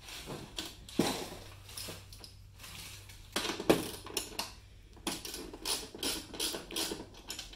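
Metal hardware clinking and knocking on a snowmobile tunnel. From about five seconds in, a socket ratchet clicks in short even strokes, about three a second, as it tightens nylock nuts onto the bracket bolts.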